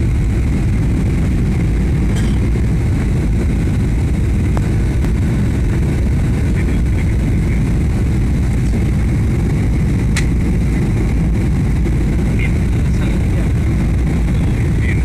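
Airliner cabin noise during the landing approach, with flaps extended: a loud, steady low rumble of engines and airflow.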